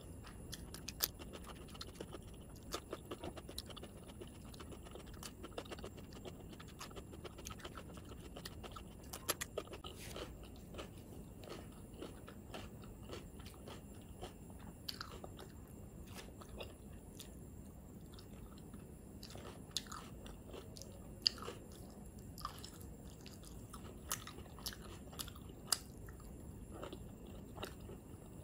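Close-up chewing and mouth sounds of a person eating rice and curry by hand, with many small sharp clicks and a few crunches scattered throughout.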